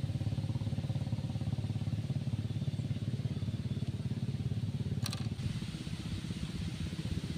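A small engine running steadily with an even, rapid low chugging, with a short crackle about five seconds in.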